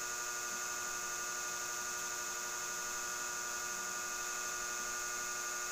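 Steady hum of an electric fan running, a constant drone with several fixed tones.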